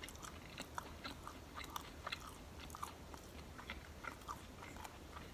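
Faint chewing of a sub sandwich: irregular small wet clicks and smacks of the mouth.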